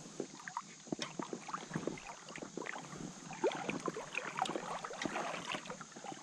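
Shallow creek water splashing and trickling close by, many small irregular splashes over a steady rush.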